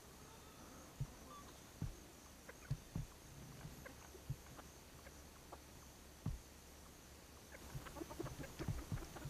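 Chickens clucking softly: short scattered calls that grow busier near the end, with a few dull low thumps in between.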